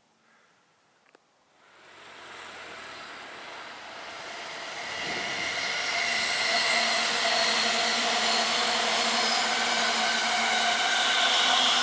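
A train approaching. Its running noise builds steadily from near silence, starting about two seconds in, with several steady whining tones over the rumble.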